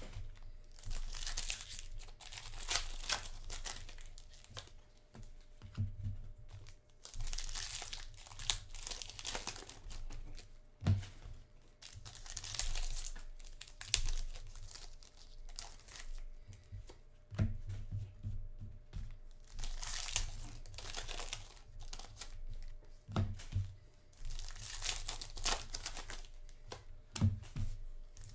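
Foil wrappers of trading-card packs being torn open and crinkled by hand, in repeated bursts every second or two, with a few dull knocks from handling the packs.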